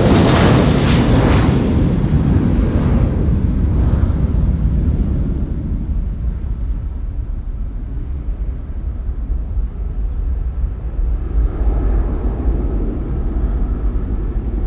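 Twin-engine Airbus A320-family jet airliner at takeoff power, loudest for the first two seconds as it passes close, then a deep rumble slowly fading as it climbs away.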